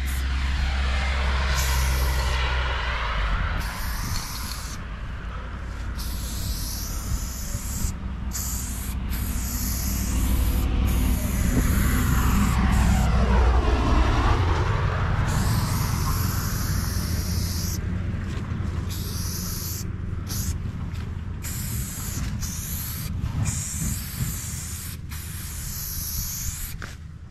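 Aerosol spray paint can hissing in repeated bursts of one to a few seconds with short breaks, as paint goes onto a concrete wall. Road traffic passes behind it, one vehicle loudest about halfway through.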